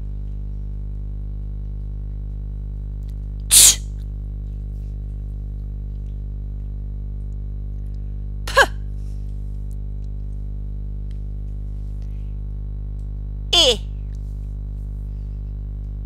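Steady synthesized background drone. Three short pitched sound effects come about five seconds apart, a little after three, eight and thirteen seconds in, and the last one slides downward.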